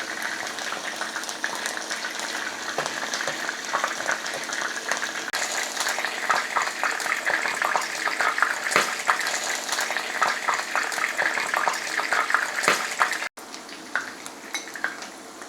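Chicken pieces frying in hot oil in a pan: a steady sizzle with frequent sharp crackling pops. About 13 seconds in it cuts off abruptly and resumes as a quieter sizzle.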